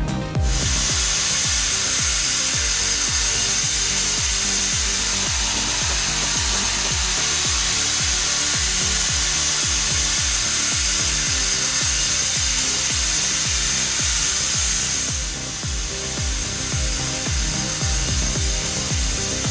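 A power saw cutting through wood, a loud steady high hiss that eases off about fifteen seconds in, over background music with a steady beat.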